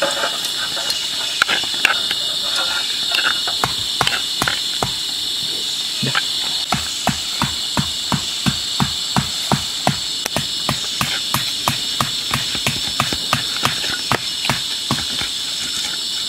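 Pestle pounding chilli sambal in a wooden mortar, in even knocks about three a second from about six seconds in, after lighter irregular clicks and scrapes. A steady high insect drone runs underneath.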